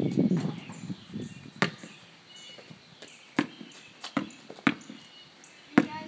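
Basketball bouncing on an asphalt driveway as it is dribbled: about five single bounces at uneven intervals.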